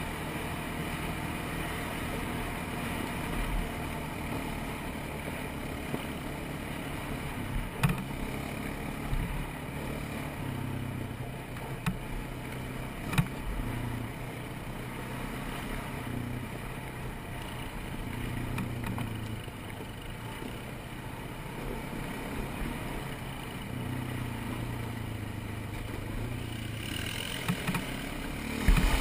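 ATV engine running on a trail ride, its pitch rising and falling with the throttle, with a few sharp knocks and rattles along the way.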